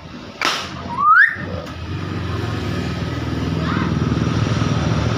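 Nias hill myna gives a short harsh screech, then a sharp rising whistle about a second in. After that a motor vehicle engine runs steadily underneath, slowly getting louder.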